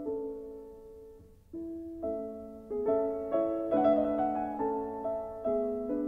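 Gentle solo piano music. A held chord fades away, and about a second and a half in a new phrase of single notes and chords begins.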